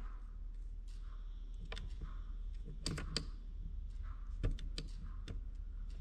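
Scattered small clicks and taps of multimeter test probe tips being set into and moved about the slots of a 30-amp 240 V outlet, over a low steady hum. The clicks come irregularly, about seven of them, and the sharpest falls about four and a half seconds in.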